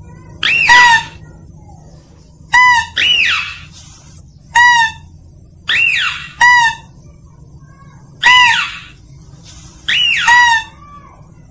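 Mouse-deer (kancil) lure call repeating: pairs of short high-pitched calls, one sweeping up and back down, the other a short steady note, about one pair every two seconds.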